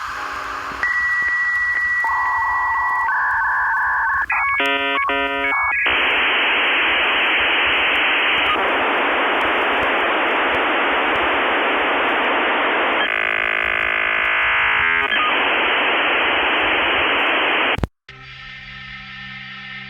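Dial-up modem handshake: a steady high answer tone and warbling tones, a quick run of stepping tones, then a long harsh hiss with a brief warbling stretch in the middle, cutting off abruptly near the end.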